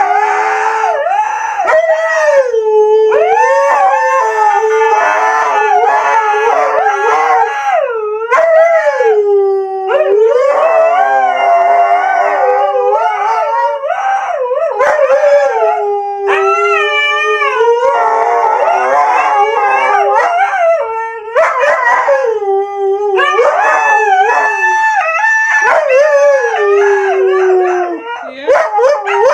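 Siberian husky howling and "talking" almost without pause: long, wavering calls that slide up and down in pitch, broken into separate phrases every second or two.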